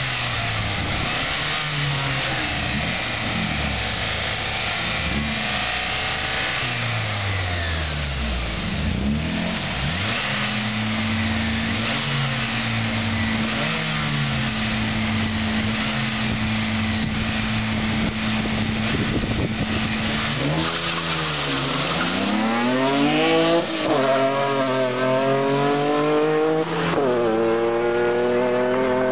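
Two car engines at a drag-race start line, revved up and down repeatedly, then held at steady high revs for about ten seconds. The cars then launch and accelerate hard, the engine pitch climbing with a drop at each of two gear changes.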